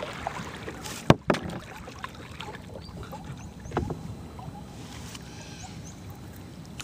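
Small boat moving through floodwater: a steady low rush of water, with a few sharp knocks about a second in and near four seconds.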